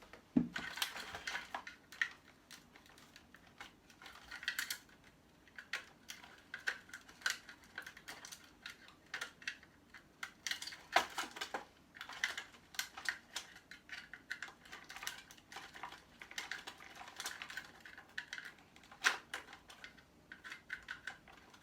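Small screwdriver clicking and scraping against the plastic and metal parts of an electronic device being taken apart, in irregular sharp ticks and small knocks, a few of them louder.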